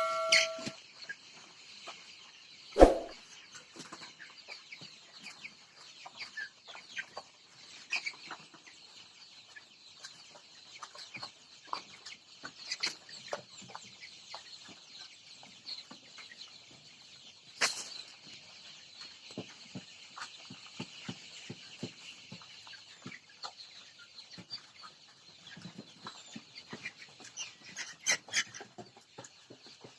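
A flock of Sonali chickens clucking in a poultry house, with many short calls over a steady high-pitched background hum of the flock. There is one loud thump about three seconds in.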